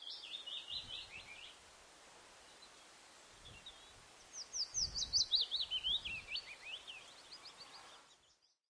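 A songbird singing in fast runs of high, sharp notes: a short phrase at the start, then a longer, louder one from about four and a half seconds in, over a faint steady hiss.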